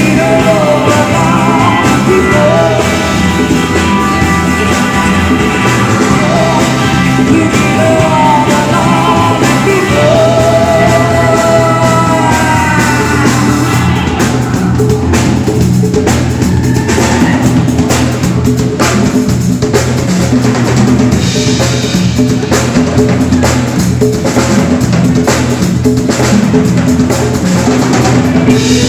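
A rock band playing live and loud: a singer over guitar, bass and drums, the vocal dropping out about halfway through and leaving an instrumental passage driven by the drum kit.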